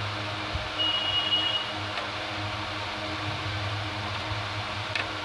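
Small screwdriver working a wire terminal screw on a starter panel's switch, over a steady background hum; a short high squeak about a second in and a single light click near the end.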